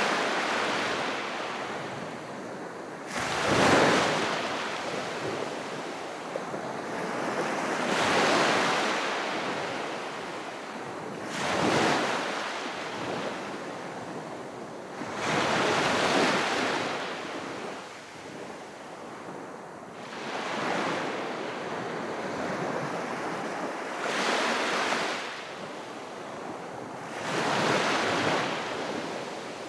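Small, gentle sea waves breaking and washing onto the shore, a surge about every three to four seconds.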